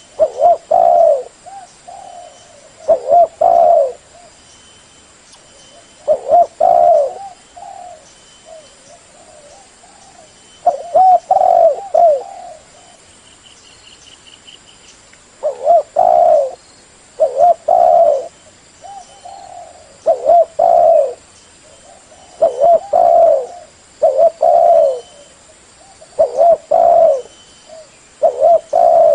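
Spotted dove cooing over and over: short phrases of two or three coos, repeated about every one to two seconds, with a few short pauses. A brief faint high trill sounds about halfway through.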